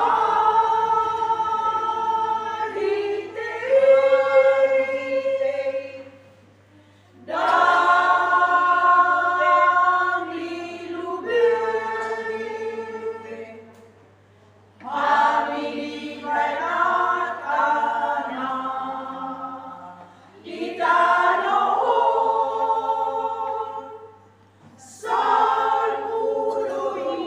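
Women's church choir singing a hymn unaccompanied, in held chords across five phrases of a few seconds each with short breaths between them.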